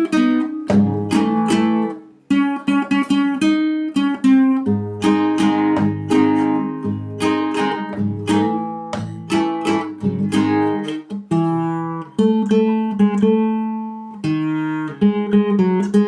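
Acoustic guitar played solo, picking out a single-note melody over ringing bass notes, with a short break about two seconds in.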